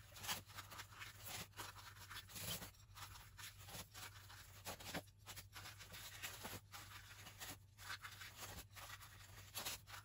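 Small kitchen knife slicing through crisp baked puff-pastry squares: faint, irregular scratchy crackles as the blade cuts the flaky layers.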